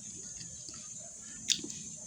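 Mouth sounds of someone eating: small wet clicks of chewing, with one sharp click about one and a half seconds in.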